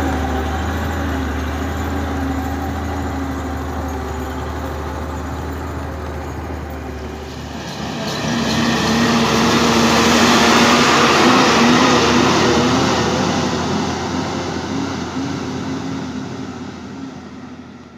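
Heavy diesel trucks running on a dirt road. A loaded dump truck approaches about eight seconds in, its engine and tyre noise swelling to the loudest point, then fading as it passes and moves away.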